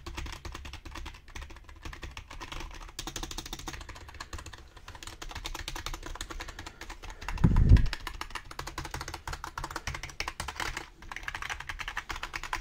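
Fast typing on a cheap dollar-store membrane keyboard with hard plastic keycaps: a dense run of key clicks and clacks, with one heavy low thump about halfway through.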